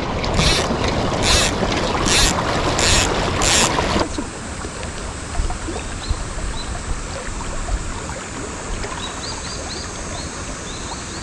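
Rushing current of a river running high and muddy after rain, a steady rush of water. Over the first few seconds come five sharp noises, about one a second. About four seconds in the sound drops abruptly to a softer, even rush, with faint high chirps near the end.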